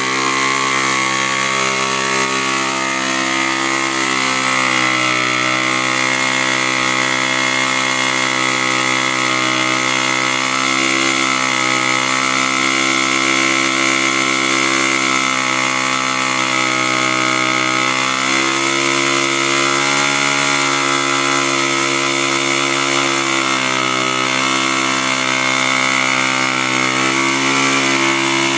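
Honda CT110 postie bike's small single-cylinder four-stroke engine held at high revs through a long, steady burnout, the rear knobby tyre spinning on concrete. The pitch wavers a little but stays high.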